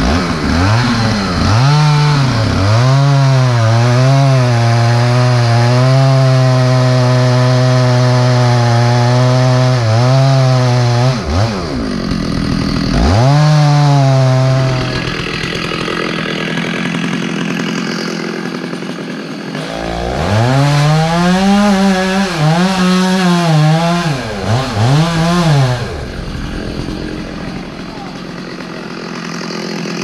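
Stihl chainsaw cutting into the base of an oak trunk: the engine revs up and holds steady under load for several seconds at a time, drops back, and revs again several times. Near the end the chain strikes metal, an old nail buried in the trunk.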